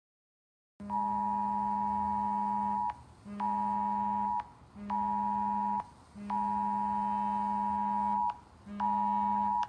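Wireless Emergency Alert attention tone: a steady two-pitch alarm tone sounding in a long-short-short cadence, about two seconds on then two one-second beeps with half-second gaps, then starting over. It begins about a second in and is cut off abruptly.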